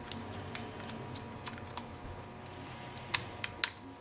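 Light clicks and ticks of a small screwdriver turning Torx mounting screws into a laptop hard drive's sides, with a few sharper clicks about three seconds in.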